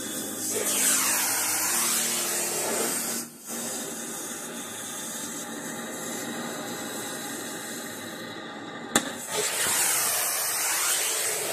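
Background music: a steady hissing noise texture with a slow sweeping whoosh that comes twice, and one sharp click shortly before the second sweep.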